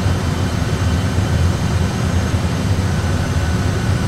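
Steady deep rumble and hiss of an Airbus A320 cockpit on an autopilot approach: engine and airflow noise, even throughout with no separate events.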